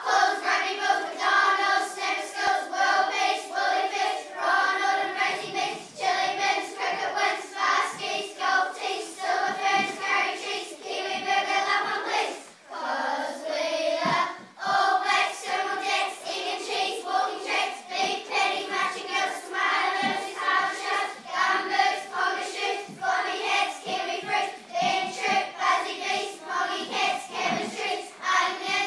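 A group of primary-school children singing together as a choir, with two short breaks about twelve and a half and fourteen and a half seconds in.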